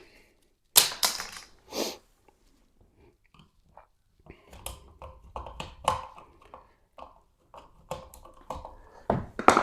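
A wall outlet's cover plate being taken off: a few loud scrapes about a second in, then a run of small clicks and scrapes of the screw and plastic plate being handled.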